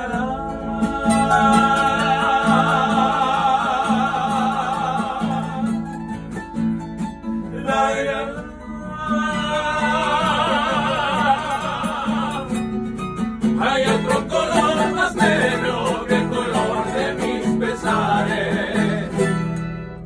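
A tuna group playing guitars and a bandurria while the singers hold long sung notes with vibrato, broken by a short gap near the middle. The singing stops a little over halfway through, and an instrumental passage of strummed and plucked strings carries on.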